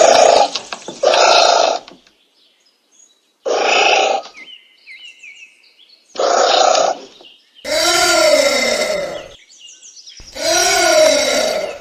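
Anteater calling: a run of six harsh calls with short gaps, the last two longer and rising then falling in pitch. Faint bird chirps sound in the gaps.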